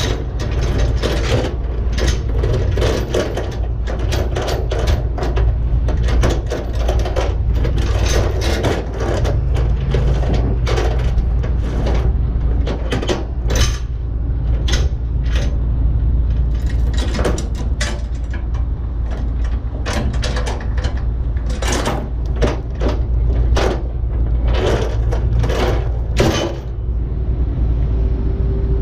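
Irregular metallic clicks and clanks from hand work on a steel log bunk and its chain on a flatbed trailer, over a steady low engine rumble. Near the end the clicking stops and a steady hum comes in.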